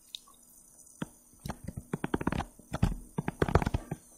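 Stylus tapping and scratching on a tablet screen while writing by hand: a quiet start, then uneven clusters of quick sharp clicks from about a second and a half in.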